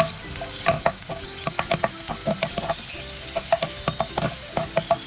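Cashew nuts and raisins frying in a mix of coconut oil and ghee, sizzling steadily, with frequent irregular clicks of a utensil stirring against the pan.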